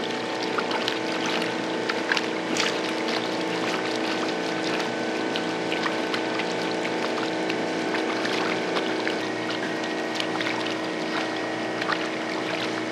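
Water splashing and sloshing as a piece of shark is scrubbed by hand in a plastic tub, with scattered small splashes, over a steady motor hum.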